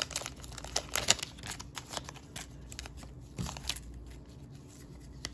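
Foil trading-card pack torn open and crinkled in plastic-gloved hands: a quick run of sharp crackles over the first two seconds or so, then quieter rustling as the cards come out, with one more short crinkle about three and a half seconds in.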